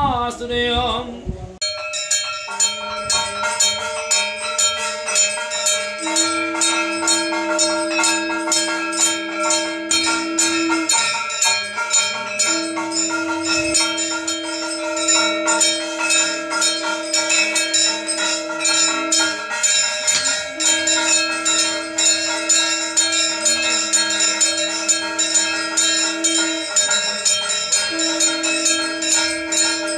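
Puja bells rung in a fast, continuous clangour of metallic strikes. Over them, a conch shell is blown in four long held notes of about five to seven seconds each, the usual accompaniment to a Kali puja pumpkin sacrifice.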